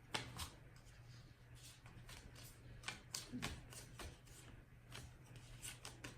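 Baseball cards being handled and flipped through: soft, scattered flicks and rustles of card stock, faint, over a steady low hum.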